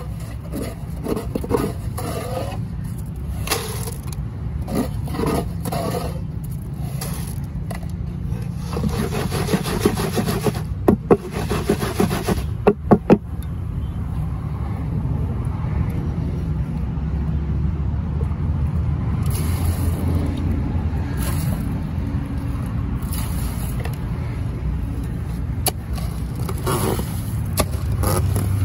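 Gritty scraping and rustling of wet gravel-laden concrete being scooped and worked into a plastic tile mould, over a steady low rumble. Near the middle come a few sharp, loud knocks.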